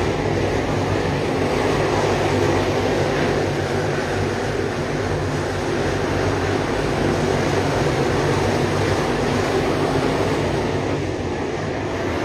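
Pack of dirt late model race cars with Chevrolet 604 crate small-block V8 engines racing together around a dirt oval, a steady, loud, continuous engine din.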